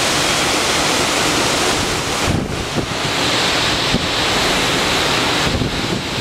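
Strong storm wind rushing through the trees in steady gusts, with wind buffeting the microphone in low thumps; a short lull comes about two seconds in.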